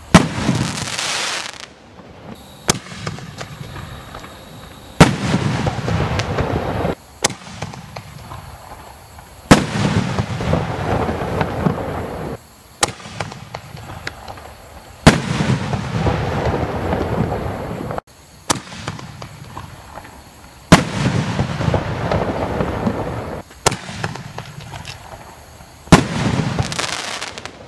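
5-inch aerial canister shells firing one after another: about six loud bursts, roughly five seconds apart, each trailing off in a rumbling, crackling echo. A quieter launch thump from the mortar comes about two and a half seconds before each burst.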